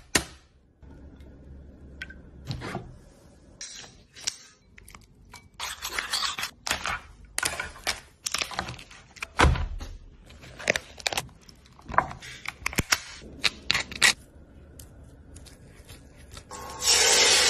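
Close-up food-preparation noises: a run of sharp cracks, clicks and knocks as an eggshell and a cooked crab's shell are broken open, with scraping as the crab meat is worked into a bowl. Near the end, loud sizzling of food frying in a pan starts abruptly.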